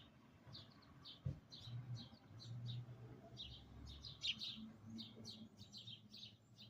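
A sparrow chirping steadily: a rapid string of short, high cheeps, about three or four a second, heard through a window.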